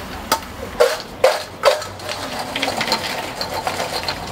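A wire fry basket knocked four times against a stainless steel bowl, about two knocks a second, to shake the crinkle-cut fries out, followed by a lighter rattle of fries shifting in the metal bowl.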